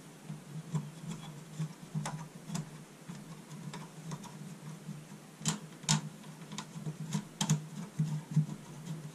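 Irregular light clicks and taps of computer case parts being handled and fitted, plastic and metal knocking together, with a few sharper clicks about five and a half, six and seven and a half seconds in, over a steady low hum.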